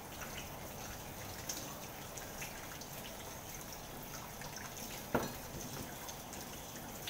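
Kitchen tap running steadily as pieces of pork are rinsed by hand under the stream. A single knock sounds about five seconds in.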